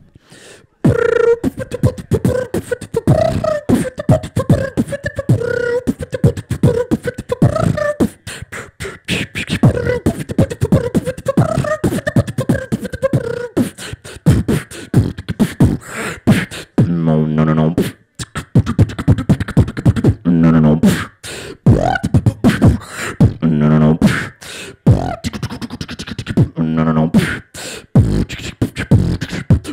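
Human beatboxing through a microphone and PA: fast kick, snare and hi-hat sounds with a hummed melody over them for the first half, then a sparser beat broken by deep pitched bass notes about every three seconds.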